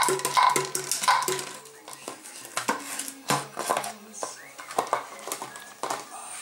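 Empty plastic drink bottle clattering and knocking on a tiled floor as a German Shepherd puppy bats, pushes and bites at it: a quick run of sharp knocks, loudest in the first second or so.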